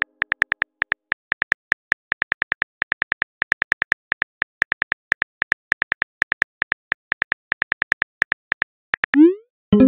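Simulated phone-keyboard typing clicks from a texting-story app: a quick, irregular run of short clicks as a message is typed letter by letter, then a short rising whoosh near the end as the message is sent.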